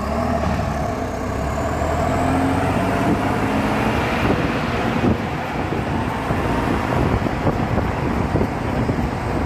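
T-150K wheeled tractor's diesel engine running hard under load as it hauls two trailers past close by, loud and steady, with a faint whine over the engine.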